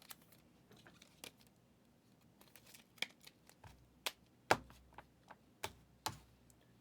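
Trading cards being handled, giving faint, scattered sharp clicks and taps as cards are slid and flicked through one by one. The loudest tap comes about four and a half seconds in.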